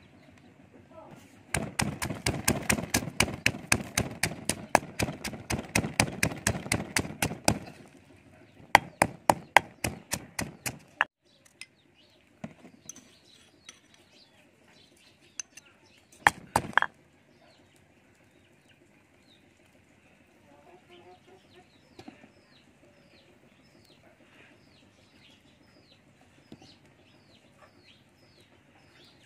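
Stone pestle pounding chilies, garlic and salt in a stone mortar: a rapid run of strikes for about six seconds, a shorter run after a short pause, then a few more strikes. In the quieter last part a bird chirps faintly, over and over.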